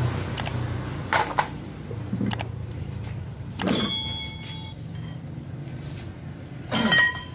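Metal tools clanking twice, each clank leaving a short high metallic ring, with a few lighter clicks before them, over a low steady background hum.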